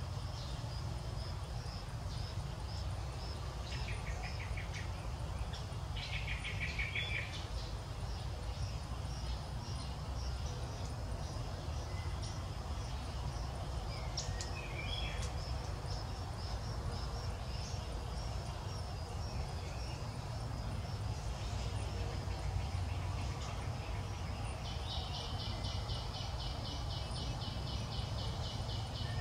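Outdoor daytime ambience: a steady low rumble under a continuous high insect drone, with a few short bird chirps. Near the end a louder, rapidly pulsing insect call sets in.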